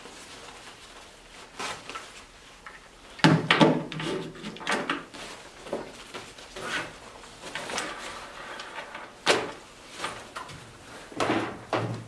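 Equipment being handled at a table: a soft pouch rustling as it is opened, and hand tools such as test meters and insulated gloves set down, giving a string of separate knocks and scrapes. The loudest knocks come about three seconds in, about nine seconds in and near the end.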